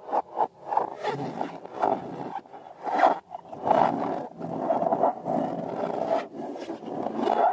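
Rubber balloons being rubbed and squeezed by hand: quick squeaky scraping strokes that run together into a continuous rubbing noise.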